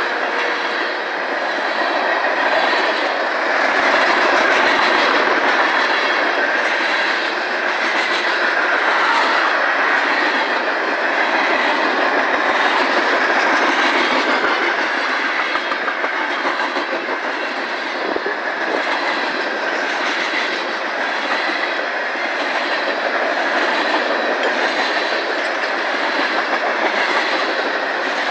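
Freight cars of a manifest train rolling steadily past at track speed: tank cars, covered hoppers and boxcars, their steel wheels making a continuous clatter on the rails.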